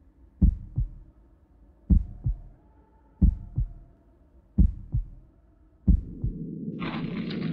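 Heartbeat sound effect: five lub-dub double thumps, evenly spaced about every 1.3 seconds. After the last beat a steady low rumbling noise sets in, with a hiss joining it near the end.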